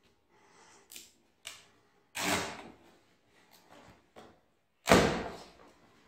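Plastic packing straps being cut off a cardboard washing-machine carton: a few light clicks, then two sharp snaps, each dying away within a second, about two and five seconds in, the second the loudest.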